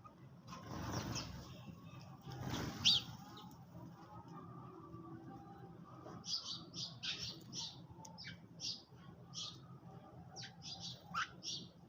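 Sparrows chirping in short, high, repeated chirps, thickest in the second half. Two brief rushes of wing flapping in the first three seconds.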